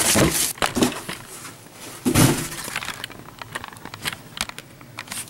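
A large toy box in a clear plastic bag being lifted out of a cardboard shipping box and set down: rustling plastic and cardboard scraping with scattered clicks and taps, loudest about two seconds in.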